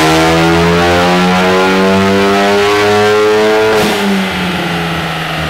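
Ford Focus ST's turbocharged 2.0-litre EcoBoost four-cylinder at full throttle on a chassis dyno, heard from the front near its Cobb intake, its pitch climbing steadily. Nearly four seconds in the throttle lifts with a brief rush of noise and the engine note drops and slowly falls away.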